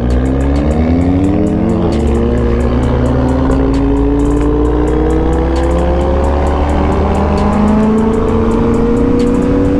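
Motorcycle engine under hard acceleration: its pitch climbs quickly, drops at a gear change about two seconds in, then rises slowly and steadily through the next gear.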